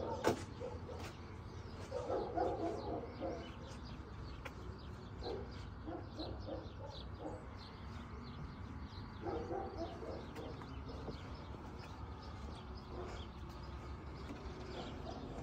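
Wild birds chirping in many short calls, with three spells of lower dove-like cooing about two, six and nine seconds in.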